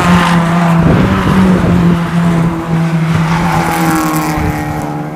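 Ford Fiesta race cars running hard at racing speed as they pass one after another, engine notes stepping in pitch. A car passes close about three and a half seconds in, its engine note falling in pitch as it goes by.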